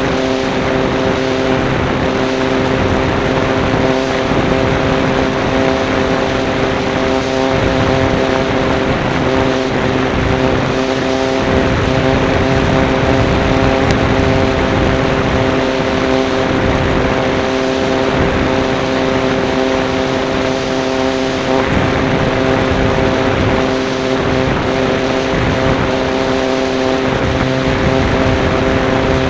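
Radio-controlled model Cessna's motor and propeller running at a steady, unchanging pitch, heard from a camera mounted on the plane, with airflow noise over it.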